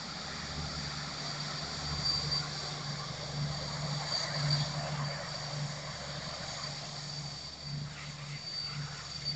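Boeing 787-9 jet engines running as the airliner rolls along the runway, a steady rush of engine noise with a thin high whine and a low hum. It swells a couple of seconds in and eases off slowly toward the end as the aircraft moves away.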